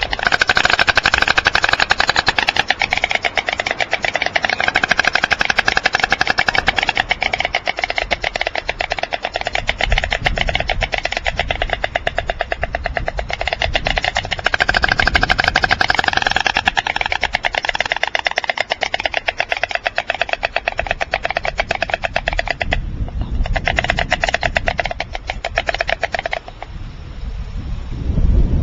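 White storks clattering their bills: a long, rapid, even rattle of bill-claps, pausing briefly and stopping near the end.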